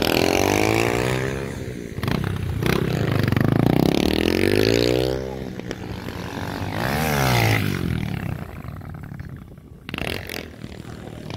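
Motorcycle engine revving in three surges, its pitch rising and falling each time, loudest through the first half. It goes quieter after that, with a few sharp knocks.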